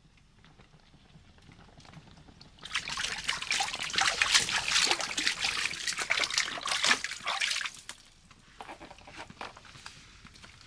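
Water splashing and trickling, starting about two and a half seconds in and going on for about five seconds before dying down to a few faint splashes.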